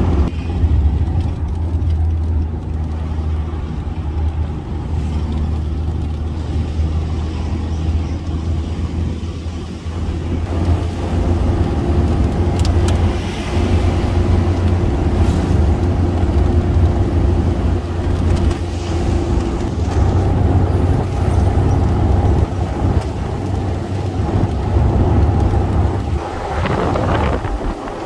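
Engine of a moving road vehicle running steadily at cruising speed, with road and wind noise, heard from on board.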